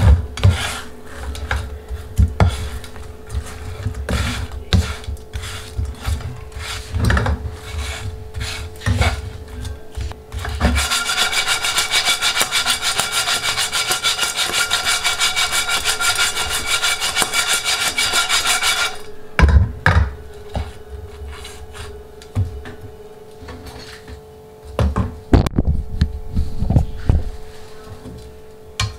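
A spatula stirring and scraping sugar- and cheese-coated rice cakes around a ceramic-coated wok, with irregular scrapes and knocks against the pan. In the middle, a steady rasping noise runs for about eight seconds before the scattered knocking returns.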